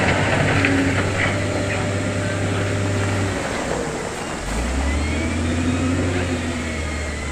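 Diesel engine of heavy earthmoving equipment running steadily. About four seconds in it settles to a lower pitch, with a faint whine above it that rises and falls.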